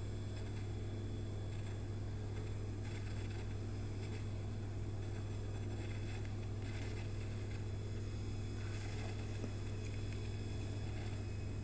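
A steady low hum with faint hiss, unchanging throughout, with no distinct events.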